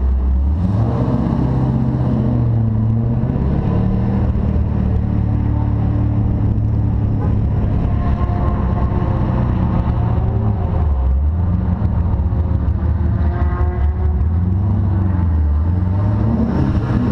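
C6 Corvette's V8 pulling away and driving at low speed, its revs stepping up soon after the start, dropping about two-thirds of the way through, and rising again near the end.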